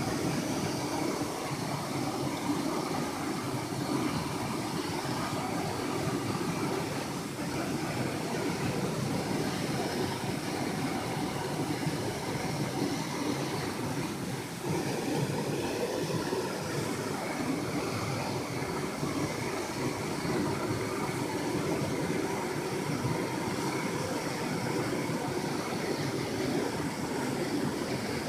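Steady rushing of a mountain stream and its small falls, an even noise with no clear tone that holds without break.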